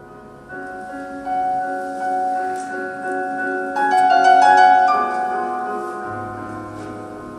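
Instrumental theatre score: sustained chords come in about half a second in and swell to a bright peak of high plucked or struck notes around four seconds in, then slowly fade.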